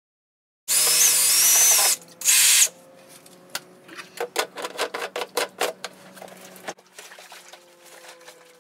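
Battery-powered backpack sprayer (FlowZone Cyclone) running: its pump motor hums steadily while spray hisses from the wand tip for over a second, then again briefly, followed by a run of about a dozen sharp clicks.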